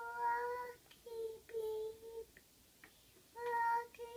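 A toddler singing softly to a doll in a few long, steady notes, in short phrases with brief pauses between them.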